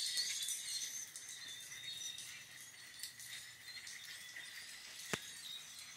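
A large flock of blackbirds calling together, a dense chatter of many short high chirps, loudest at the start. A single sharp click about five seconds in.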